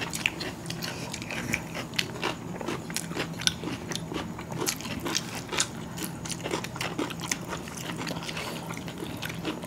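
Two people eating chicken biryani by hand: chewing and wet mouth smacks, with fingers mixing the rice on the plates. The sound comes as many short, irregular clicks.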